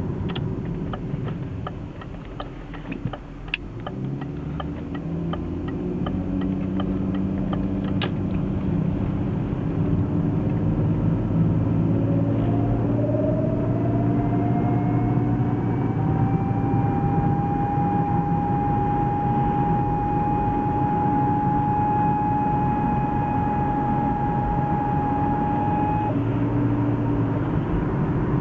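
BMW E36 being driven, with road and drivetrain rumble and an even ticking in the first third. From about halfway, a whine rises in pitch, holds steady for several seconds and stops shortly before the end. The whine comes from a failing driveshaft centre support bearing, though it was first taken for the automatic transmission.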